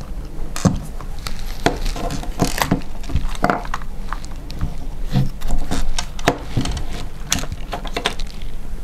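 Plastic housing of a Makita 40-volt cordless impact driver being opened and its internal parts handled: irregular clicks, taps and knocks of plastic and metal pieces.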